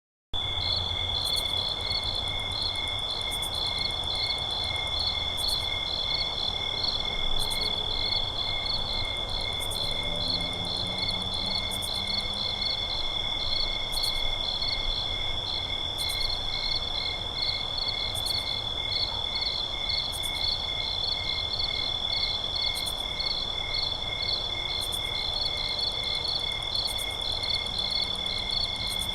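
Night forest ambience of crickets chirping: one continuous high trill under a pulsed chirp repeating about three times a second, with faint high clicks at a slower even pace. A few faint low calls come in about a third of the way through. The sound fades in just after the start.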